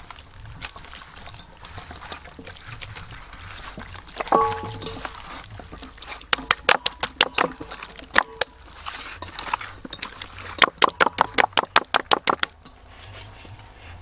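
Wet slapping and squelching of hands rubbing marinade into a raw whole chicken in a stainless steel bowl, in two runs of quick slaps several a second. A brief ring sounds about four seconds in.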